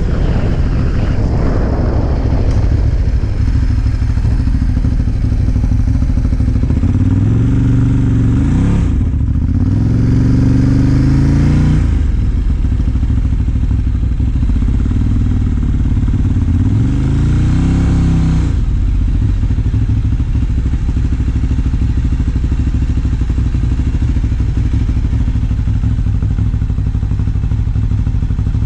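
A freshly tuned-up Ducati motorcycle engine is running at low speed, with wind on the microphone in the first seconds. Its revs climb and fall a few times between about 7 and 18 seconds in, then settle to a steady idle.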